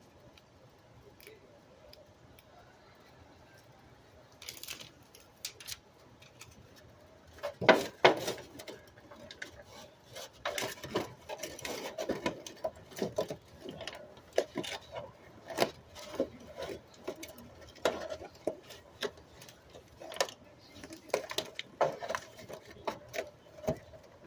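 Irregular metallic clicks, clatter and knocks of a register vent and its sheet-metal parts being handled and fitted. It starts a few seconds in and is loudest at one sharp knock about eight seconds in.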